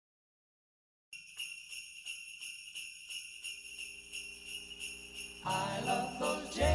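Recorded music intro: after about a second of silence, sleigh bells shaken in a steady rhythm, with instruments coming in over them near the end.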